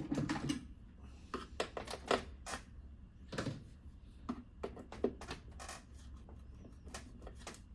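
Irregular light clicks and knocks of a manual screwdriver working screws out of a television's back frame, with parts being handled, over a faint low hum.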